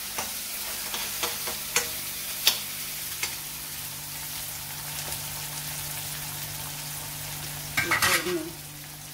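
Garlic, green chilli and tomato sizzling in hot oil in a pan for a tempering, with a spoon clicking and scraping against the pan several times in the first three seconds as it is stirred.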